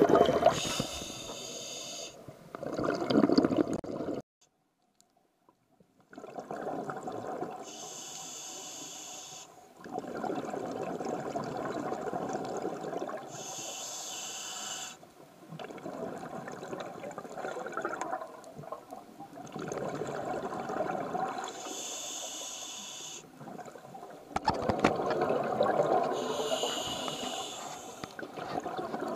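Water churning around the camera as it goes in, cutting out briefly, then scuba breathing through a regulator underwater: a short hiss on each inhale, followed by a longer bubbling rush of exhaled air, about four breaths.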